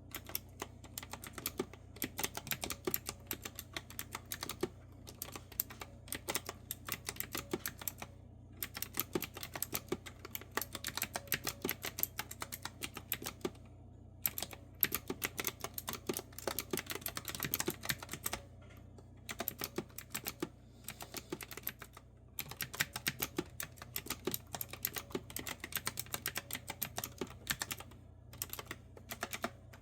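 Typing on a clicky retro-style mechanical keyboard with round keycaps: a fast, uneven run of sharp key clicks, broken by brief pauses every few seconds.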